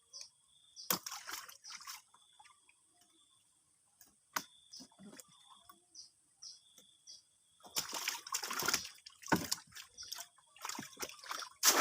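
Water splashing and dripping: a few separate splashes and drips, then heavier, busier splashing and sloshing from about eight seconds in.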